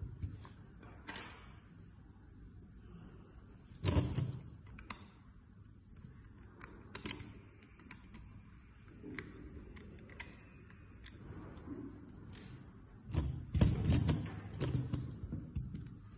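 Hard plastic parts of an electric pencil sharpener's blade assembly being handled and taken apart: scattered clicks and knocks, with a louder clatter about four seconds in and a run of knocks near the end, and a small screwdriver working a screw in between.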